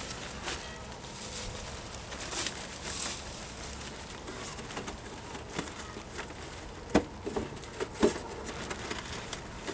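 Scattered light knocks and rustles, with two sharper knocks about seven and eight seconds in.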